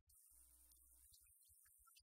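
Near silence: a faint steady hiss and a low hum in the recording.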